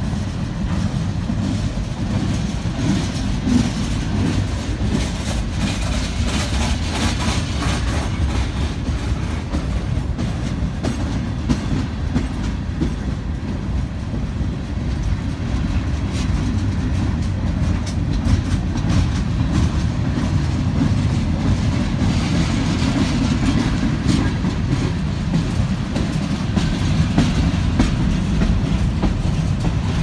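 Freight cars (gondolas and covered hoppers) rolling past on the adjacent track: a steady low rumble of steel wheels on rail, with clickety-clack over the rail joints.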